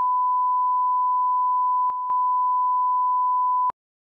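A steady 1 kHz line-up test tone of the kind that plays under colour bars. It dips briefly with a click about two seconds in and cuts off abruptly near the end.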